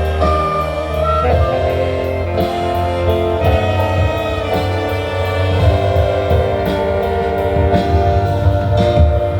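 An instrumental ensemble playing, with held melody notes changing every second or so over a steady bass line and light drum strikes.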